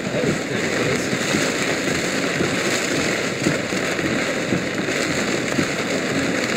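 Heavy rain pelting a moving car's roof and windshield in a severe thunderstorm: a steady, dense patter of drops.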